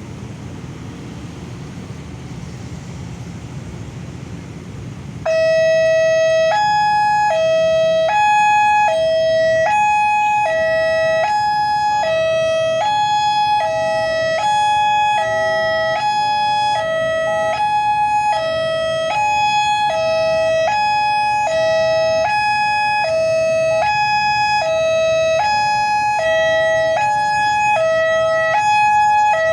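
Railway level-crossing warning siren, the crossing's old electronic alarm, starting abruptly about five seconds in. It alternates steadily between a lower and a higher note, each held for roughly half a second, over a low steady background rumble.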